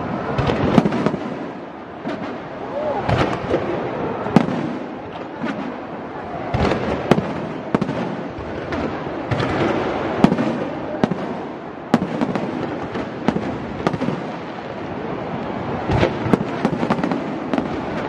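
Aerial fireworks display: shells bursting overhead in an irregular, rapid run of sharp bangs with crackling between them.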